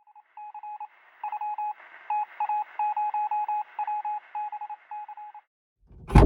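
Electronic beeps at one pitch in an irregular pattern of short and long tones, then a loud thump near the end.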